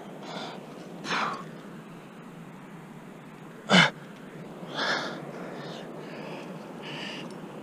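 A rock climber's hard, sharp exhalations while climbing a crack, about five short breaths. The one about four seconds in is the loudest, short and sneeze-like.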